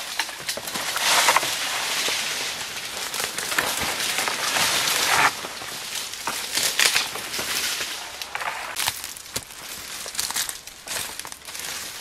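Dry leaf litter and bamboo debris crackling and rustling as someone walks and pushes through a bamboo thicket. The sound comes in uneven bursts, louder in the first half and dropping off abruptly about five seconds in.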